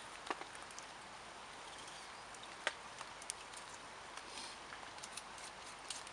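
Wood campfire crackling softly over a steady hiss, with a few sharp pops scattered through, the loudest about two and a half seconds in.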